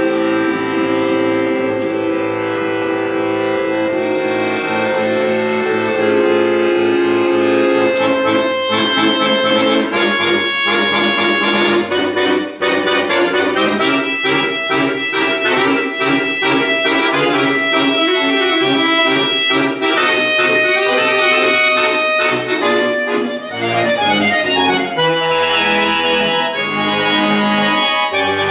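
Chromatic button accordion (bayan) played solo: sustained chords held for the first several seconds, then fast runs of short, quick notes.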